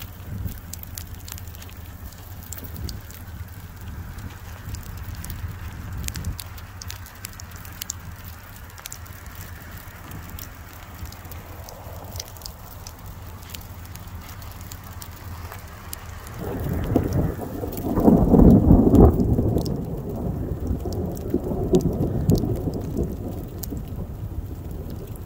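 Sleet and freezing rain ticking against the car under a steady low rumble. About sixteen seconds in, a long rumble of thunder swells, peaks and slowly fades over several seconds.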